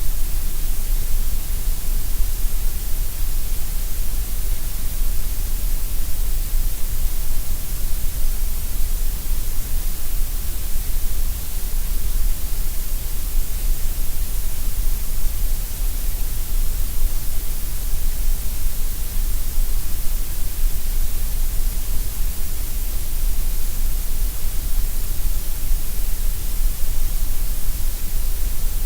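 Gray noise: a steady, unchanging synthetic hiss, strongest in the deep bass and the high treble and thinner in the middle.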